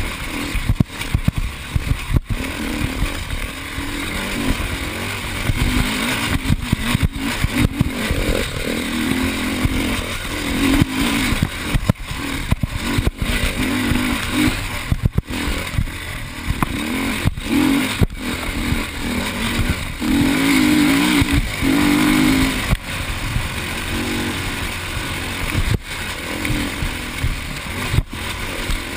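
Enduro dirt bike engine, heard close up from the bike, revving up and falling back again and again as it is ridden over a rough dirt trail, over a constant rushing noise.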